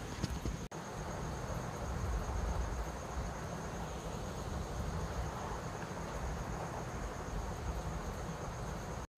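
Hot oil sizzling steadily as fish roe pakoda deep-fry in a non-stick kadai, being turned over with a silicone spatula.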